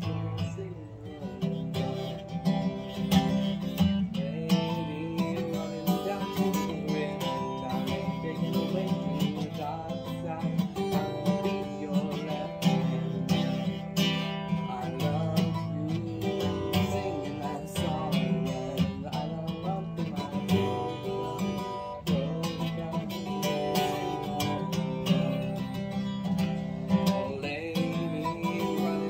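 Music played on acoustic guitar, continuing throughout.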